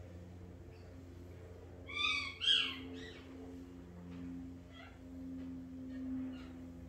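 A pet's vocal calls: two short, high-pitched cries about two seconds in, then fainter short calls later, over a steady low hum.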